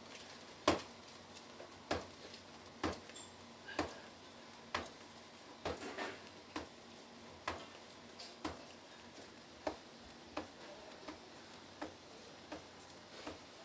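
Buckwheat soba dough being kneaded by hand in a large lacquered kneading bowl: a short slap each time the dough ball is pushed down against the bowl, roughly once a second and a little uneven in spacing and strength.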